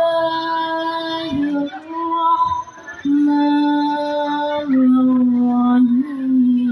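A woman reciting the Quran in the melodic tilawah style, drawing out long held notes with ornamented turns in pitch. She breaks off briefly about a second and a half in, and sings more quietly until about three seconds in. Then she holds long notes again, each one stepping lower.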